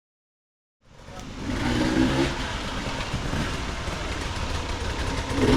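Enduro dirt bike engine running, with a dense wash of noise behind it, fading in from silence just under a second in.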